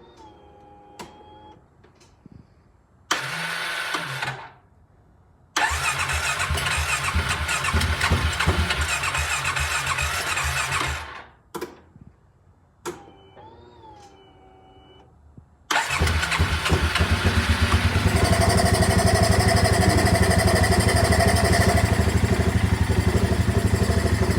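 Rebuilt Polaris Ace 570 single-cylinder engine turned over by its electric starter, first briefly, then for about five seconds without catching, before it fires about sixteen seconds in and settles into steady running. It is the first start after a complete rebuild, and it runs loud because there is no air filter on it.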